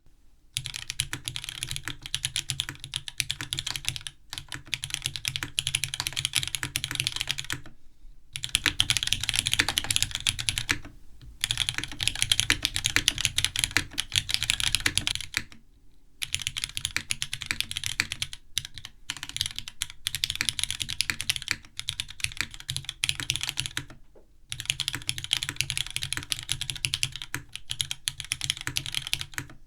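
Neo80 Cu mechanical keyboard with Cherry MX2A Black linear switches and GMK keycaps being typed on quickly and steadily. The keystrokes come in runs of a few seconds, each broken by a short pause.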